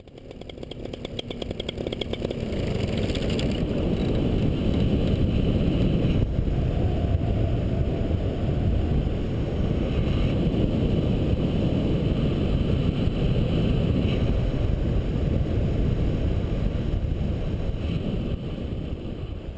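Paramotor engine and propeller running steadily in flight, mixed with wind buffeting the microphone; it fades in over the first few seconds, then holds level.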